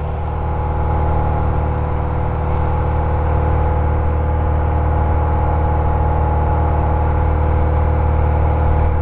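1957 Cessna 180's six-cylinder Continental O-470 engine and propeller running steadily in flight, heard inside the cabin; it grows slightly louder over the first second.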